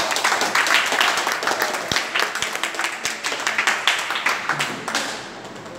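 Audience applauding: many people clapping together in dense, irregular claps that die away near the end.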